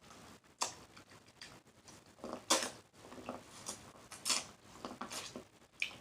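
Close-miked eating of corn on the cob: irregular bites, chewing and wet mouth smacks, with the loudest bites about two and a half and four seconds in.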